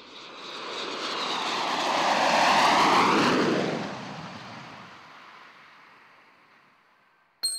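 A fixed-wing aircraft flying past: its engine noise swells to a peak about three seconds in, drops in pitch as it passes, and fades away. A sudden bright ping comes in at the very end.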